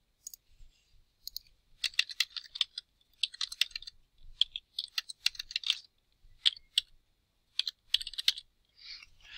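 Typing on a computer keyboard: several short bursts of quick keystrokes with pauses between them.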